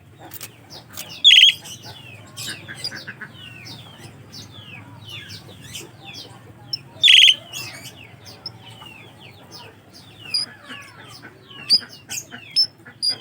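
Asian pied starlings (jalak suren) calling as a bird-song lure: a busy run of whistled chirps and rising and falling notes. Two loud, harsh calls stand out, about a second in and again about seven seconds in, and sharp high pips come near the end.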